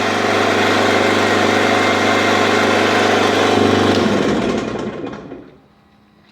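The motor of a Lego-brick (interlocking compressed-earth brick) press running steadily, then switched off about four seconds in and winding down to stillness by five and a half seconds.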